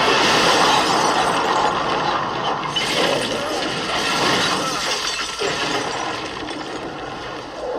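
Movie sound effects of a giant creature's foot crushing taxis: glass shattering and metal crunching amid falling debris, loudest at the start with another crash about three seconds in, then trailing off.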